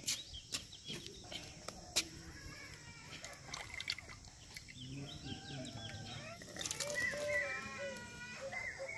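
Wood fire crackling with scattered sharp pops under a clay cooking pot, over a steady insect drone, with animal calls in the background from about five seconds in.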